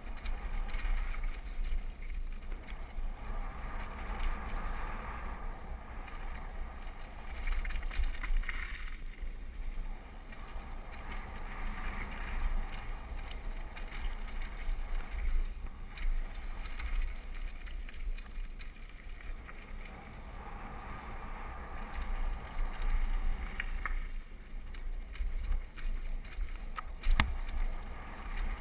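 A downhill mountain bike riding fast down a dirt trail: rushing wind buffeting the camera microphone over the tyres rolling on dirt, with the bike rattling and knocking over bumps and one sharp knock near the end.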